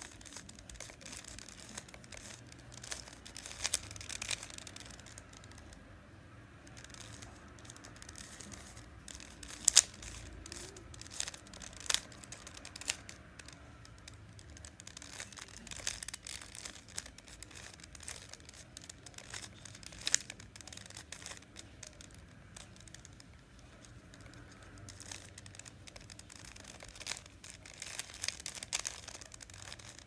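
A stickerless plastic 3x3 Rubik's cube being turned by hand: irregular, rapid clicking and rattling of the layers as they turn, with a few sharper clacks, the loudest about ten and twenty seconds in.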